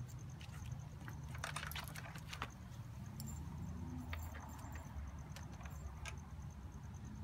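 Faint handling noise: light clicks and rustles of wire leads being moved by hand, with a short run of clicks about a second and a half in, over a low steady rumble.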